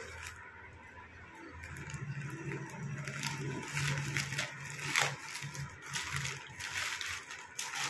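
Plastic wrapping crinkling and rustling as a parcel is pulled open by hand, with scissors cutting into it partway and a few sharp crackles, the sharpest about five seconds in. A low hum comes and goes underneath.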